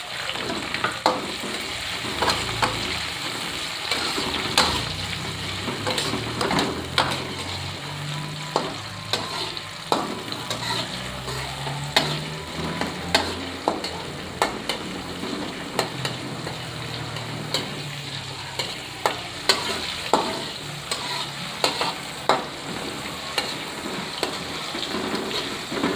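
Sliced shallots and tomato sizzling in hot oil in a pan while being stirred, with frequent sharp scrapes and taps of the spatula against the pan.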